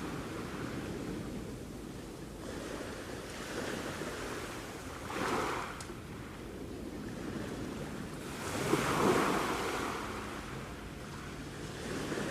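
Sea waves washing steadily onto a shore, with louder breakers about five seconds in and again around nine seconds.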